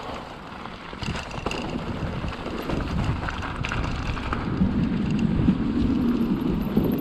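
Riding noise from an e-mountain bike descending a trail: tyres rumbling over the ground and wind buffeting the camera microphone, growing louder about a second in as the bike picks up speed.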